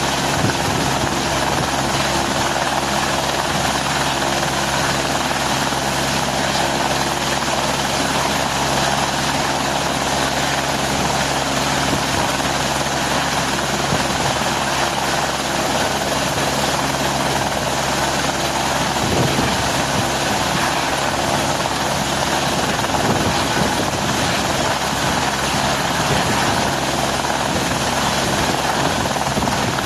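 Helicopter running steadily, with a continuous drone of rotor and engine noise.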